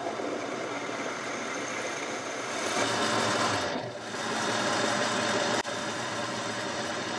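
Boxford lathe running with a steel bar spinning in the chuck: a carbide-insert tool cuts the end of the bar, then a tailstock drill bores into it. Steady machine running noise, louder about three seconds in, with abrupt jumps in the sound where it changes from one cut to the other.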